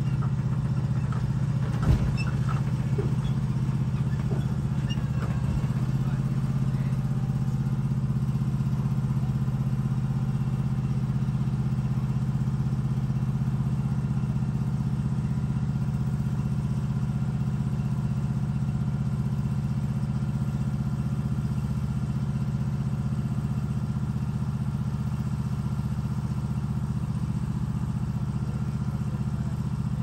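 Small engine of a tracked shed-moving machine running steadily under load, with a single clunk about two seconds in.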